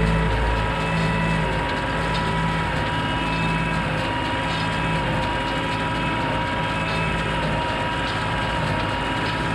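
Tractor engine running steadily under load while it pulls a New Holland 69 small square baler, with the baler working as it picks up a windrow of hay.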